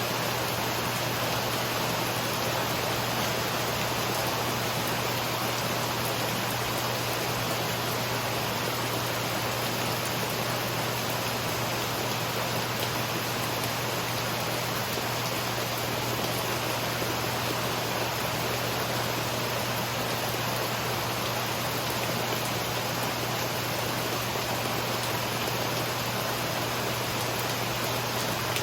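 Steady rain falling: an even, unbroken hiss with no thunderclaps.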